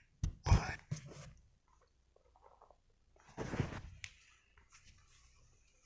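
Handling noise on a phone's microphone: a few short thumps in the first second, then a louder rustle about three and a half seconds in, with small clicks between.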